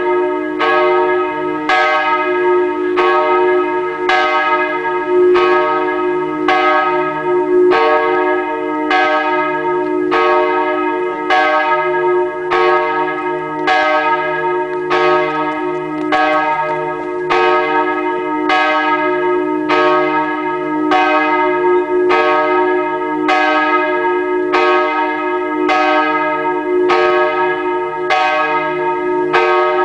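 Catholic church bells ringing before Mass, struck steadily about every second and a quarter, each stroke ringing on into the next.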